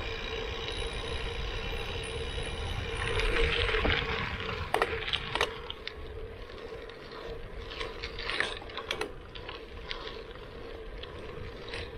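Gravel bike riding along a gravel road, heard from a handlebar-mounted action camera: a steady rush of wind and tyre noise, louder about three seconds in, with a few sharp rattles as the bike goes over bumps.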